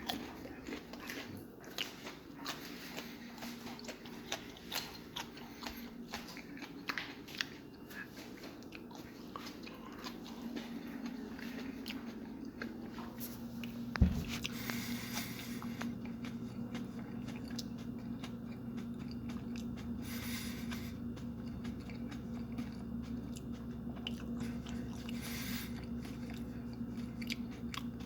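Biting into and chewing a raw Fatalii Jigsaw chili pepper: crisp crunching bites and chewing, with many small clicks over the first ten seconds. There is a single sharp thump about halfway through, then fewer clicks.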